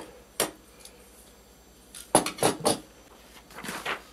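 Handling noise on a workbench: a few sharp clicks and clinks of small metal hardware and 3D-printed plastic parts being picked up and set down, in short clusters. Near the end comes a brief rustle as a paper drawing is lifted.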